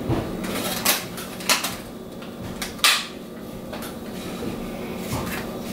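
Clear plastic clamshell berry container being handled and opened: a few sharp plastic clicks and crackles, the loudest about three seconds in, over a steady low hum.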